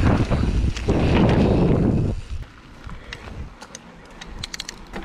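Wind buffeting an action-camera microphone over the rumble of a Canyon Torque mountain bike rolling on dirt. A little over two seconds in it drops off to quieter rolling with scattered light clicks.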